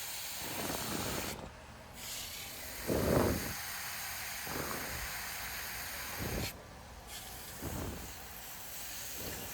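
Water spraying from a garden hose nozzle: a steady hiss that cuts out briefly twice. A few soft low thumps come in between.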